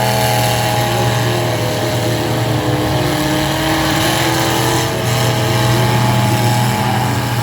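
Demolition derby cars' engines running, a loud steady droning hum.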